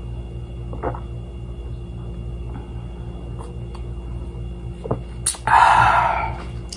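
A man gulps from a soda can, with faint swallowing clicks, then lets out a loud breathy exhale through the open mouth lasting about a second, over a steady background hum.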